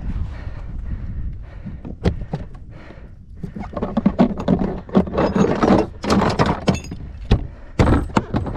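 Gear being handled on a plastic paddleboard deck: scattered knocks and thunks, then a thicker run of rustling and rattling clatter from about halfway through.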